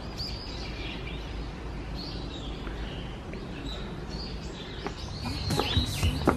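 Small birds chirping now and then over a steady outdoor background hum. Near the end come a few sharp footsteps on stone steps.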